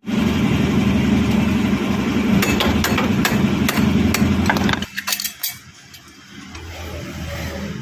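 Bajaj Pulsar 220 single-cylinder engine running with repeated knocking ticks over its hum, the abnormal engine noise being diagnosed. The engine sound falls away sharply about five seconds in, leaving a few faint clicks.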